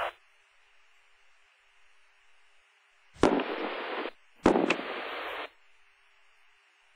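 Spacecraft radio/intercom loop keyed open twice without speech: two bursts of hiss about a second long each, each starting with a click and cutting off suddenly, over a faint steady background hiss.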